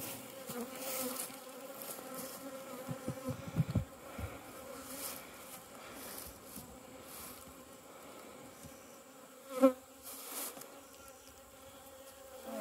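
Honeybees of a disturbed colony buzzing around an opened hive, a steady hum, with one bee passing close to the microphone about ten seconds in. A few light knocks of the wooden hive boxes and cover being handled come a few seconds in.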